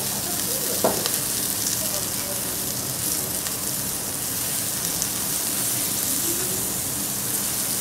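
Meat sizzling steadily on a hot teppanyaki iron griddle as it is sliced, with one sharp click about a second in. Faint voices murmur underneath.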